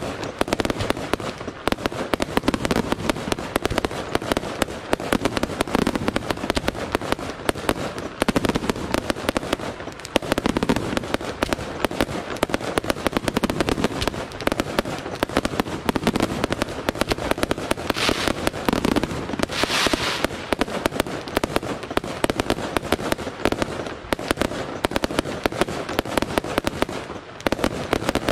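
Fireworks display: aerial shells bursting one after another with dense, continuous crackling and bangs. About two-thirds of the way through comes a brighter hiss of sparks.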